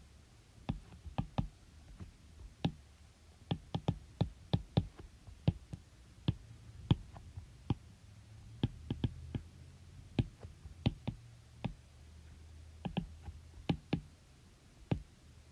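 Irregular light clicks and taps, up to a few a second, with pauses between groups, over a faint low hum.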